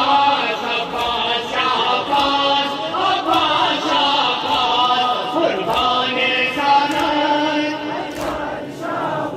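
Crowd of men chanting a mourning noha together, with repeated sharp slaps of chest-beating (matam) striking through the singing.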